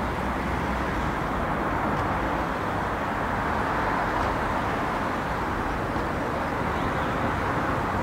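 Steady town background noise: an even, continuous rush of distant traffic.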